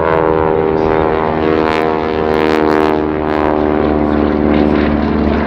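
Single-engine propeller aircraft flying by, its piston engine and propeller giving a loud, steady drone.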